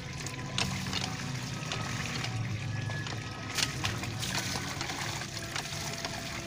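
Water running steadily from a pipe into a basin, with short splashes as clothes are dunked, swished and squeezed by hand in the soapy water.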